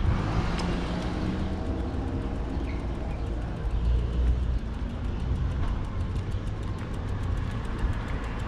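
A motor vehicle's engine running under steady low wind rumble, its note rising gently over the first couple of seconds.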